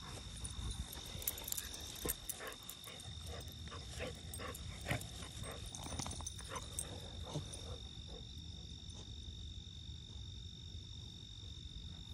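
A basset hound and a puppy playing in grass, heard as scattered soft clicks and rustles over the first several seconds that thin out later on. Under them runs a steady high insect chirr.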